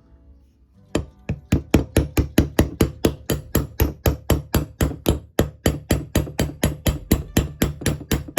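Steady run of hammer blows, about four a second, starting about a second in and stopping abruptly near the end, over background music.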